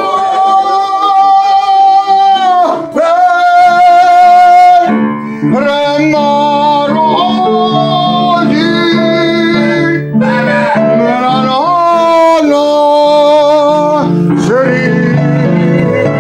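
Operatic voice singing long held notes with vibrato, accompanied by piano chords.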